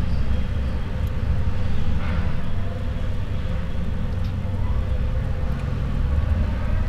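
A steady low rumble of background noise, with no clear events over it.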